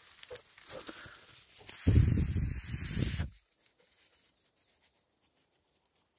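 Light rustling of cloth, then about two seconds in a person blows one long, hard breath of air that lasts about a second and a half and stops abruptly.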